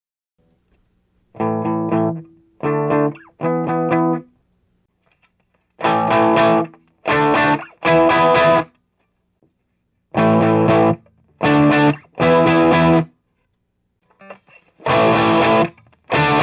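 Distorted electric guitar played through a Marshall model 1987 50-watt valve amplifier clone: short chord stabs in a phrase of three, repeated four times with pauses between. After the first phrase the chords sound markedly brighter.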